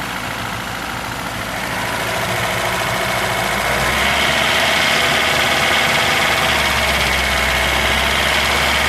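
Lada Classic four-cylinder engine idling, with an extraneous noise from the cylinder head that is still there after a new camshaft, rockers and rocker pivots; the owner cannot find its cause. It gets louder about four seconds in, when a higher-pitched band of valve-train noise comes up and holds.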